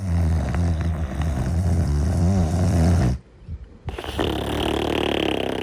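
Snoring in sleep: one long, low, rattling snore lasting about three seconds, a short pause, then a second snoring breath with a higher tone.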